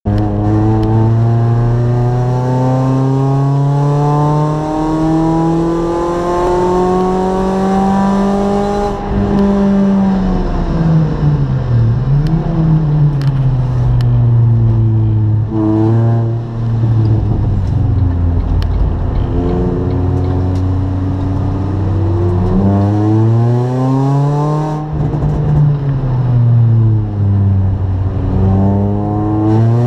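Race car engine heard from inside the cockpit, revving up slowly under full load, then falling away at gear changes and braking for corners about a third of the way in and again near the end, climbing back up each time.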